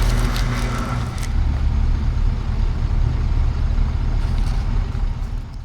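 Road vehicle running: a steady low engine and road rumble with a hiss above it, which cuts off near the end.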